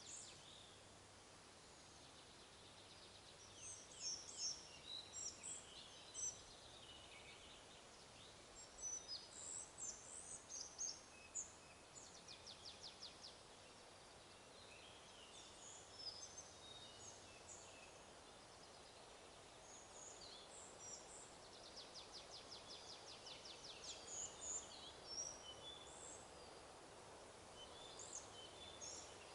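Small songbirds chirping and singing on and off, with a rapid trill about twelve seconds in and again about twenty-two seconds in, over a faint steady hiss.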